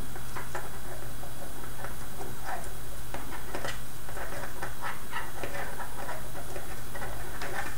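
Light, scattered clicks and rustles of small plastic construction-kit parts and string being handled by hand, over a steady low hum.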